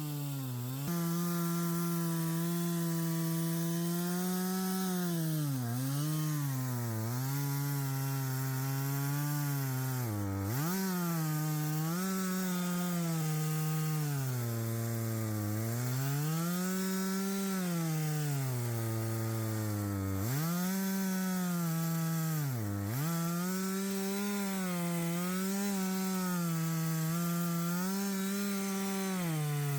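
Gas chainsaw with a ripping chain, mounted in an Alaskan-style chainsaw mill, running at full throttle while ripping a slab lengthwise from a log. Its engine pitch sags and recovers repeatedly as the load in the cut changes, dropping sharply about ten seconds in and again a little after twenty seconds.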